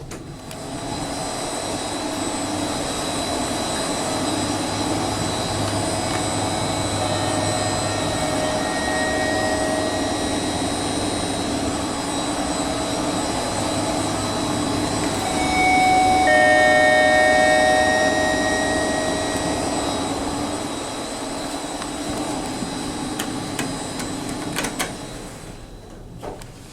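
Express lift car travelling in its shaft: a steady rush of air and running noise with faint whistling tones. It grows loudest about two-thirds of the way through, then eases off near the end as the car slows.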